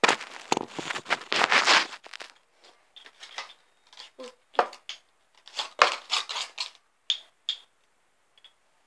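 Handling noise: a paper cut-out face on a string rustling and crinkling as it is moved about close to the microphone. It is loudest in the first two seconds, then comes in scattered short rustles and clicks.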